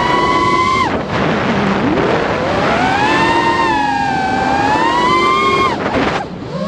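FPV quadcopter's brushless motors and propellers whining, the pitch sweeping up and down with the throttle. The whine falls away sharply about a second in and again near the end, when the throttle is cut as the quad rolls inverted, then climbs back.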